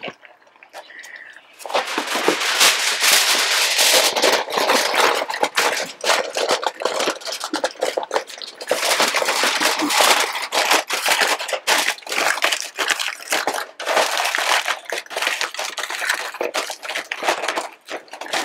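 Heavy-duty aluminum foil crinkling and crackling as it is spread over a wok and pressed and crimped tightly around the rim to hold the steam in. The crackling starts about a second and a half in and goes on in dense, irregular bursts of handling.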